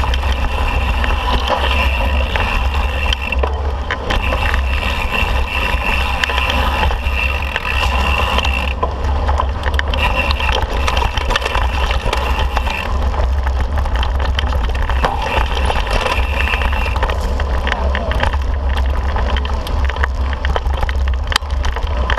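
Mountain bike riding over rocky dirt singletrack: a steady low rumble of tyres and wind buffeting the microphone, with constant rattling and knocking over rocks. A high, thin buzz from the coasting rear freehub comes and goes in stretches of a few seconds.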